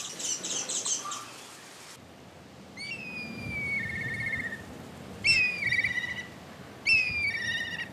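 A black kite calling three times, each call a high whistle sliding down into a quavering trill (the 'pee-hyorororo' call). In the first two seconds, small birds chirp rapidly.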